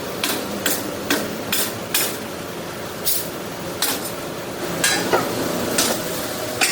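An irregular series of sharp clanking knocks, about ten in all, over steady background noise, the kind of sound made by striking or handling metal.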